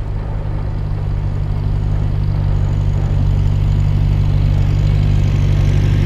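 Small tractor engine running steadily at a constant pitch, growing gradually louder as it approaches and passes close by.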